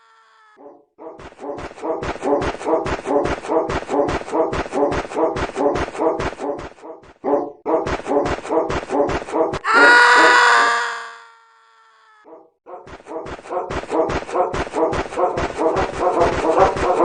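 Railroad crossing alarm ringing in a fast, even rhythm of about three strokes a second, breaking off twice. A long pitched tone fades out about ten seconds in.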